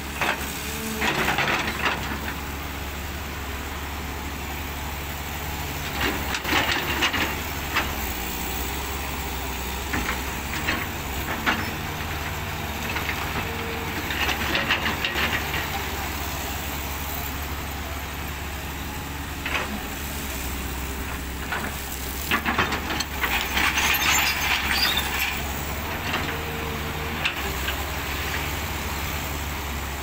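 Caterpillar hydraulic excavator with its diesel engine running steadily while the bucket scrapes and drags through crushed gravel, in four rattling bursts a few seconds apart, with occasional sharp metal clanks.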